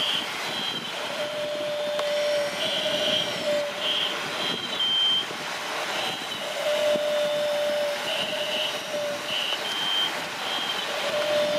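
RC excavator's electric motors whining in on-and-off stretches of about a second as its arm lifts, swings and dumps a bucket of sand into a toy dump truck.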